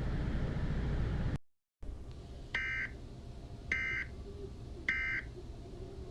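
Low background noise cuts off abruptly. After a brief silence come three short electronic beeps, evenly spaced about a second apart.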